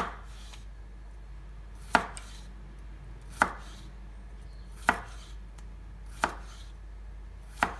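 Kitchen knife slicing a cucumber into thin rounds on a wooden cutting board: six sharp knocks of the blade meeting the board, about one every second and a half, with quiet between strokes.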